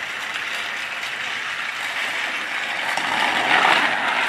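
Two battery-powered TrackMaster toy engines running on plastic track: a steady whir and rattle of small motors and gears that grows louder about three seconds in.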